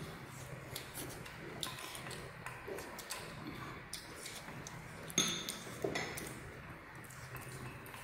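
Wooden chopsticks clinking against a stainless steel bowl: scattered light ticks, with one sharper ringing ping about five seconds in.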